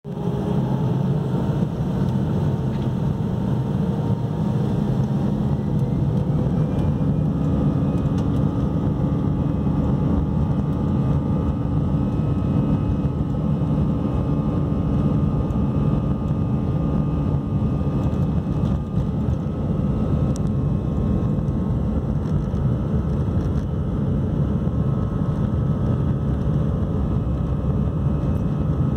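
Airbus A319-100 jet engines heard from inside the cabin over the wing, running at take-off thrust as the airliner rolls down the runway. A whine rises a few seconds in, then the engine noise holds steady and loud.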